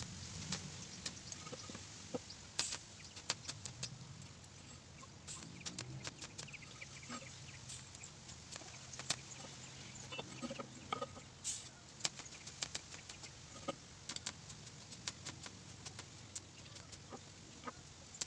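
TIG (argon) welding on a motorcycle exhaust header pipe: a low steady hum from the welder under the arc's hiss, broken by many sharp, irregular clicks and crackles.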